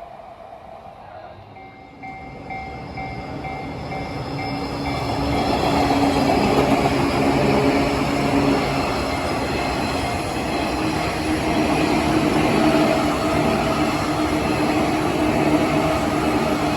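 Japanese level-crossing alarm ringing in a quick repeating ding. Then a train runs through the crossing: a rising rumble of wheels on rail that drowns out the bell and stays loud.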